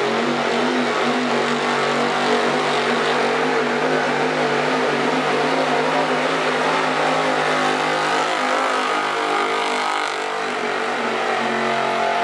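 Gasoline engine of a Ford pickup held at high, steady revs at full throttle under heavy load as it drags a weight-transfer pulling sled. The engine note dips briefly about ten seconds in.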